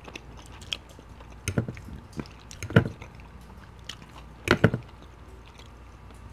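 Close-miked eating sounds: a few sharp clicks and wet smacks, about a second apart, from chewing poutine and a metal fork working in a ceramic dish.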